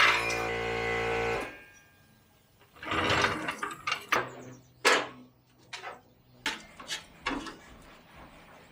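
A steady machine hum, with a brief rattling burst, cuts off about a second and a half in. A series of sharp metallic clanks and knocks from tools and suspension parts being handled follows, with a short low hum in the middle.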